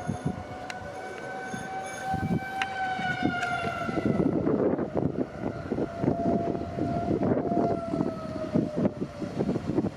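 Outdoor tornado warning siren sounding a steady wail, which drops away about four seconds in, comes back, and falls off again near the end. Gusty wind noise on the microphone grows louder from about four seconds in.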